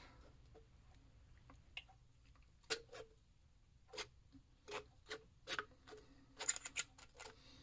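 Faint, scattered metallic clicks and taps of a brass tool being worked in against the stuck baffle stack of a Rugged Obsidian 45 suppressor, the clicks closer together near the end.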